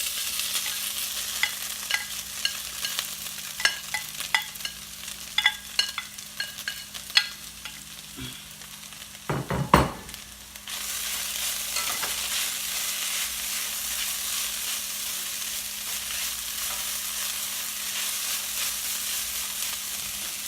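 Shredded stingray and coconut mixture frying in hot oil in a pan as it is stirred: a sizzling hiss with scattered sharp clicks and pops, a loud clatter about ten seconds in, then a steadier, louder sizzle.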